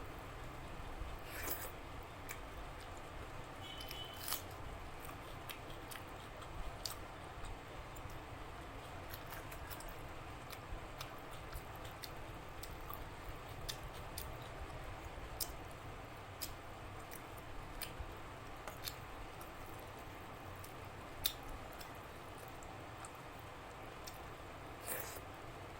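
Eating sounds from close up: chewing and wet mouth clicks, with scattered sharp clicks over a steady background hiss.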